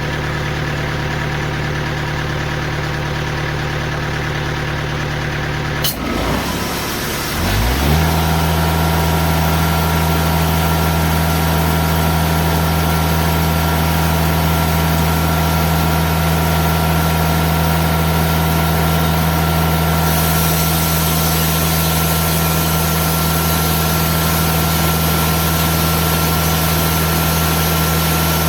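Diesel engine of a Timberking bandsaw sawmill running steadily. About six seconds in there is a click, the engine's pitch dips and swings for a couple of seconds, and from about eight seconds it runs louder and steady under load. A high hiss joins at about twenty seconds.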